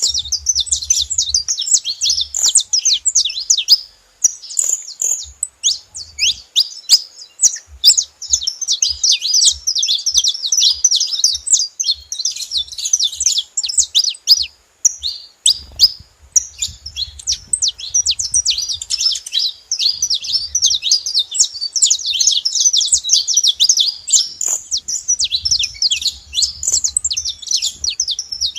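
Several saffron finches chirping together: a dense, unbroken chatter of quick, high, overlapping chirps.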